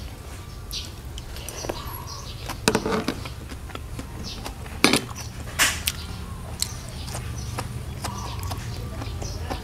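Eating sounds: a few sharp clicks and clinks from a metal spoon on the food platter and from the mouth, over a steady low hum.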